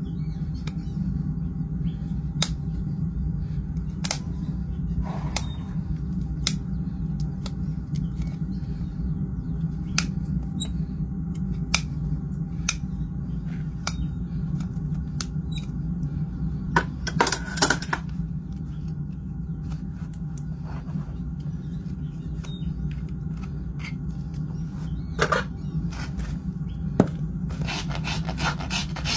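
Scattered sharp clicks and taps of farrier's tools working a Shire horse's hoof over a steady low hum, then a hoof rasp starting rapid filing strokes across the hoof near the end.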